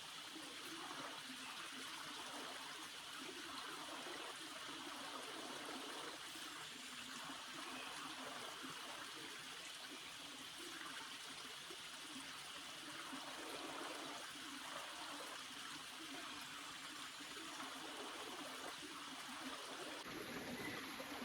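A small forest stream trickling steadily over its bed.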